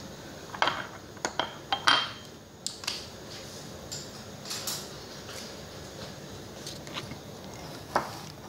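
Kitchen clatter: a quick run of sharp knocks and clinks of dishes and utensils in the first two seconds, a few scattered ones later and one more knock near the end, over a steady low hum.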